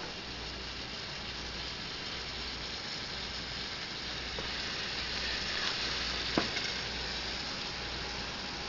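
Ground venison sizzling and frying in a skillet as it is stirred with a silicone spatula: a steady hiss, a little stronger midway, with one sharp knock about six seconds in.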